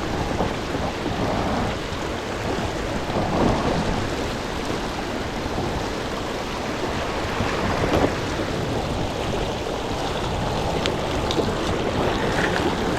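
Creek water rushing over rocks, a steady noise with no letup.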